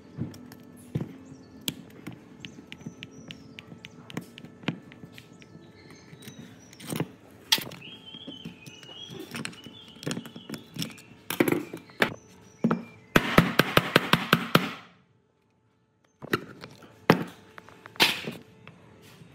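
Scattered knocks and taps of tools and metal parts being handled, with a fast run of about a dozen clicks two-thirds of the way through, followed by about a second of silence.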